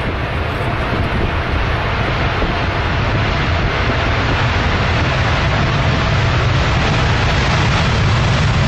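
Boeing 787 jet airliner rolling out on a wet runway just after touchdown: a broad jet-engine rumble mixed with the hiss of tyre spray, growing steadily louder.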